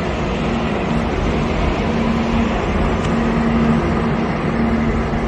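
Subway train passing through the station without stopping: a steady rumble of wheels and running gear, with a low humming tone that comes and goes.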